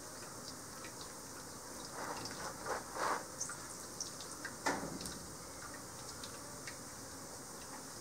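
Honeycomb being squeezed by hand in plastic gloves over a metal strainer: a few short rustling noises about two to three seconds in and once more near five seconds, over a steady high hiss with faint scattered ticks.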